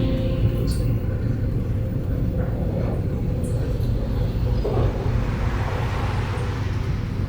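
Steady low rumble of a vehicle travelling on a road.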